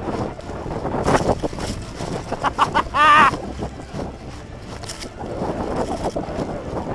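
Running through dry leaves and undergrowth, with rustling and wind buffeting the body-worn microphone. About three seconds in there is a brief, loud, wavering vocal sound.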